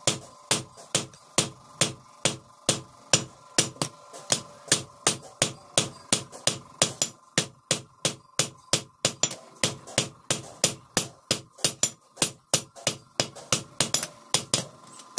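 Hand hammer forging a hot, curved wood-cutter blade on a railway-rail anvil: a steady run of sharp metal-on-metal blows, about three a second, some struck harder than others.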